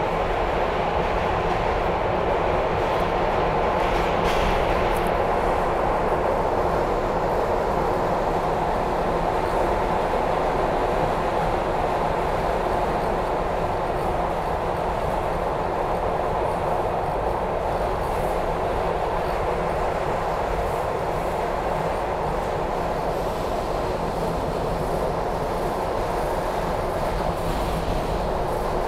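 SEPTA Broad Street Line subway car running at speed through the tunnel, heard from inside the car: a steady, unbroken noise of wheels on rails and car motion.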